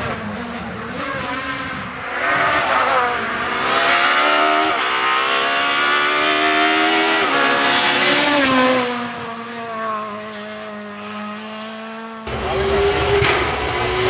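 Renault Clio S1600 rally car's high-revving naturally aspirated four-cylinder engine accelerating hard, its pitch climbing and dropping suddenly at two upshifts. It then passes and falls in pitch as it moves away. About twelve seconds in, the sound cuts abruptly to a louder, noisier scene.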